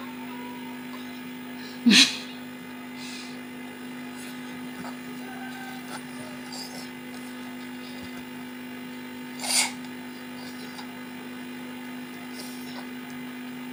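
A toddler blowing into a rubber balloon: two short, sharp bursts of breath, about two seconds in and again near ten seconds, over a steady low hum.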